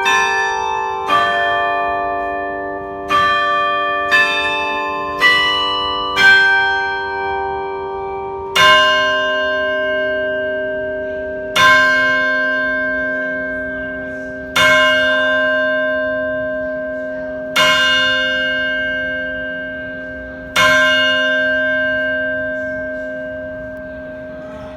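Freedom Tower bells ringing: the last notes of a chime tune struck about a second apart, then slower, deeper strokes about three seconds apart, five of them, each left to ring down, tolling the six o'clock hour.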